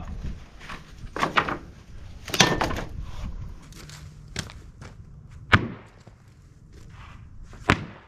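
Freshly sawn red pine boards being handled and set down on a lumber stack: several separate wooden knocks and thuds a second or two apart, the loudest about two and a half seconds in.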